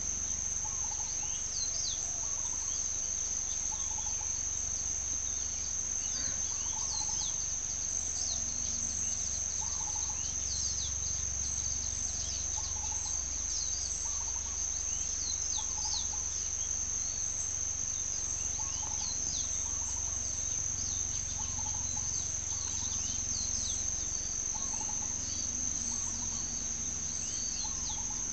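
Hens clucking softly every second or two as they forage, over an unbroken high insect trill, with many short high chirps scattered throughout.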